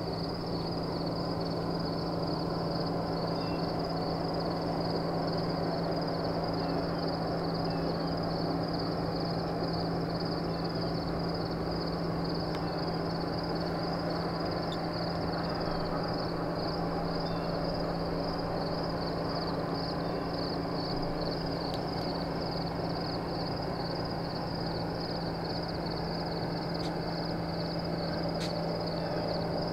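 Insects trilling in a steady chorus, a high, fast-pulsing trill that never lets up, over a steady low hum.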